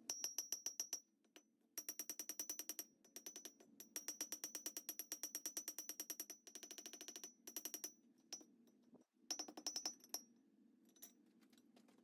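Hammer striking a small piece of hot steel on an anvil in quick runs of rapid blows, each with a high metallic ring, forging one half of a pair of miniature pliers. The runs come in about six bursts with short pauses between them.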